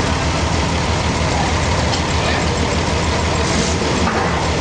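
Heavy machinery engine running steadily with a loud, low drone, and a brief hiss about three and a half seconds in.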